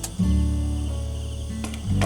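Background music with low held notes that change pitch twice, and a few short sharp clicks.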